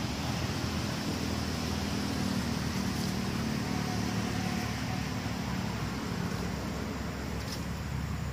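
Steady low rumble of a motor vehicle engine running, under an even background hiss.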